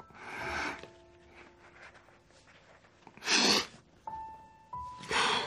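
A man crying: three breathy, sniffling sobs, near the start, about three seconds in and near the end, over soft piano music.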